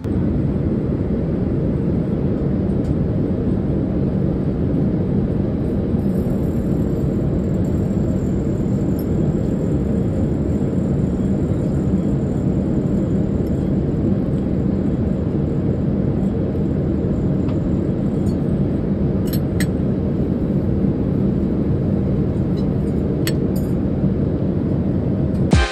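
Steady loud roar of an airliner cabin in flight: engine and airflow noise with a deep rumble. A few light clicks come near the end.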